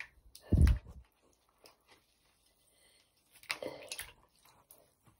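A hand squeezing a crumbling bath bomb and swishing it through a sink full of water: a loud low thump about half a second in, then a burst of wet sloshing and splashing around three and a half seconds.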